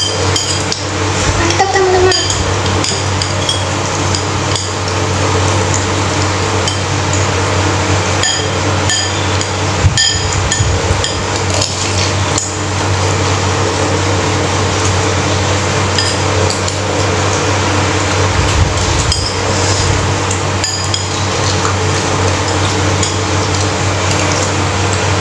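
Metal spoons and forks clinking and scraping against a ceramic bowl of noodle soup, in irregular short strikes, some with a brief ring, and noodles being slurped. A steady low hum runs underneath.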